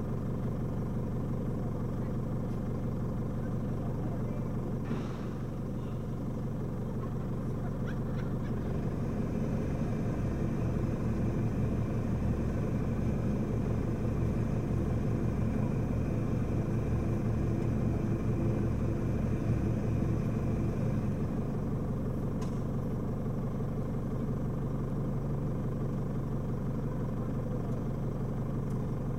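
Four-wheel-drive vehicle engine running steadily, working harder for about twelve seconds in the middle with a faint whine over it, then settling back.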